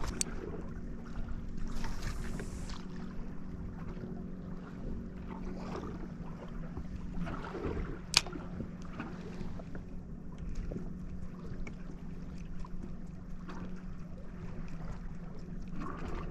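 Fishing boat with a steady low motor hum under light water and wind noise, and one sharp click about eight seconds in.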